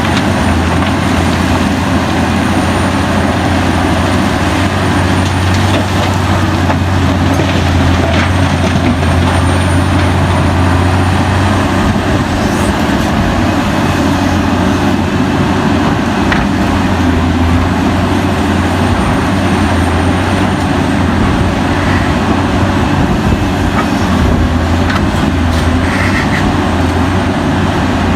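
Heavy diesel mining machinery running steadily at work, with an even, deep engine sound and no clear breaks.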